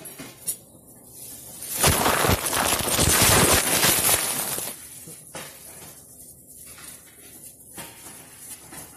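Handling noise: a loud crackling rustle close to the microphone, as the phone is moved about and gloved hands brush against it, starting about two seconds in and lasting about three seconds. Quieter rustling and small clicks before and after.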